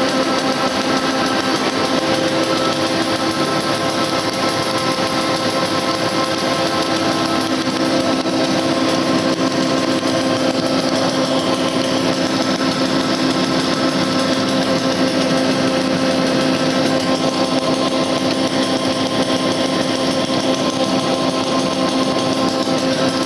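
Stack-type flexographic printing machine running steadily: a continuous mechanical noise with a constant hum of several fixed tones that does not change.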